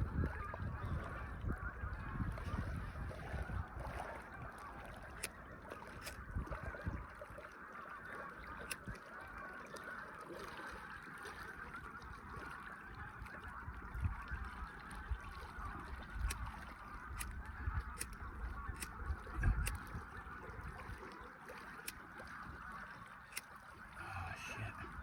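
A distant flock of geese honking continuously as a dense, steady chatter, with low rumbling and a few faint clicks underneath.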